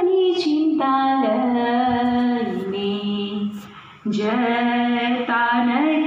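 A girl singing a prayer song solo, holding long notes that step up and down in pitch, with a short break for breath about four seconds in.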